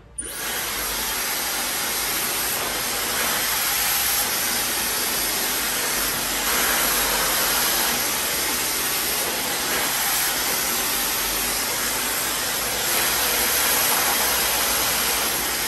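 Hand-held hair dryer with a concentrator nozzle switched on and running steadily at full blow, a rush of air with a thin high whine on top, as a section of hair is blow-dried straight over a round brush.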